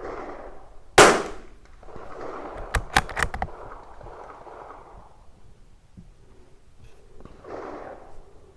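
A single .22 LR shot from a Tikka T1x bolt-action rimfire rifle about a second in, sharp and loud with a short ring after it. Then comes a quick run of sharp clicks, four or five within about half a second, from the bolt being worked to chamber the next round.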